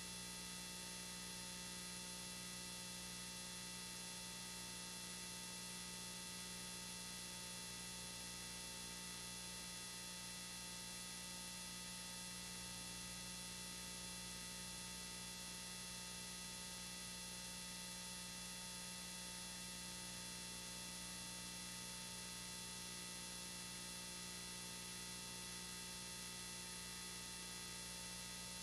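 Steady electrical hum with hiss and a stack of fixed whining tones, unchanging throughout: noise from a faulty soundtrack rather than any sound of the scene.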